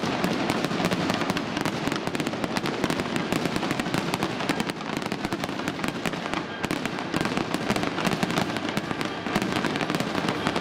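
A fireworks display with many shells going off in quick succession: a dense, continuous stream of pops and crackles.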